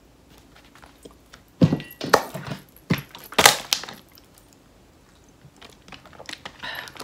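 Knocks of cosmetics being handled, then a few short hisses from a handheld spray bottle misted at the face about three and a half seconds in.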